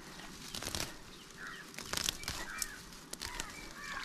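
Crackling rustles of fine dry grass being handled, with several short bird chirps in the background.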